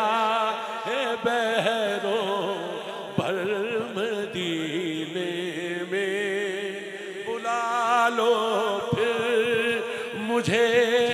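A man singing a devotional Punjabi-Urdu kalam into a microphone, drawing out long wordless notes with a wide, wavering vibrato.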